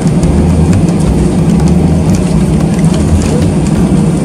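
Jet airliner's engines running: a loud, steady low rumble with faint light rattles over it.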